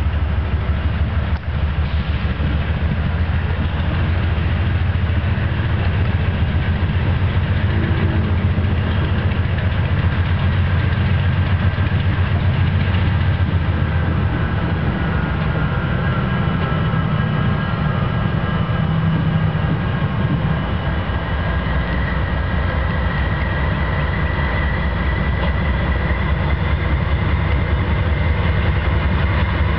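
Illinois Central EMD SD70 diesel-electric locomotive and a trailing unit rolling slowly past close by, their two-stroke diesel engines giving a steady, heavy low rumble with an even pulse. A faint high whine rises over it in the second half.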